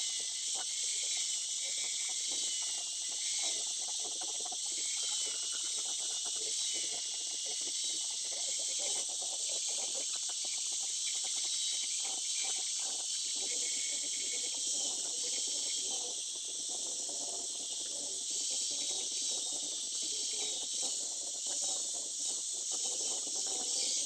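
Handheld electric angle grinder grinding a small stainless steel piece: a steady high grinding hiss over a wavering motor whine, which stops abruptly at the end.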